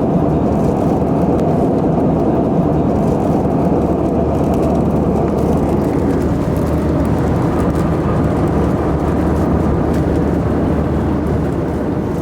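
Steady cabin noise of an Airbus A320 under way: a loud, even rush of its IAE V2500 jet engines and airflow heard from inside the cabin.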